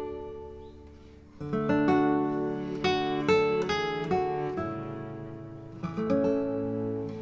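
Acoustic guitar music: plucked notes and strummed chords, with a louder chord coming in about a second and a half in.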